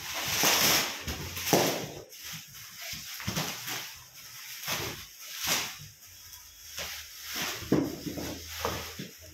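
Plastic packaging and bubble wrap crinkling and rustling in irregular bursts as it is handled and pulled off office chair parts.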